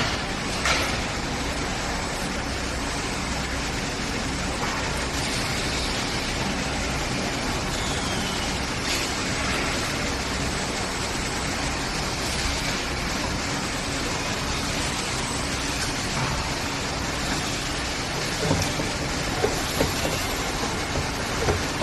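Steady noise of a rock wool production line's machinery running on the factory floor, with a few short clanks near the end.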